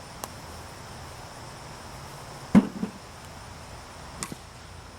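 A single sharp knock of a wiffle ball impact about halfway through, with a couple of fainter clicks before and after. Insects chirr steadily throughout.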